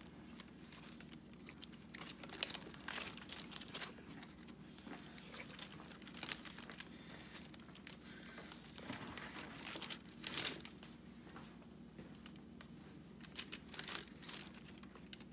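Butter slime (glue slime worked with Model Magic clay) being squeezed, kneaded and pulled apart by hand, giving irregular sticky clicks and crackles with a few louder pops.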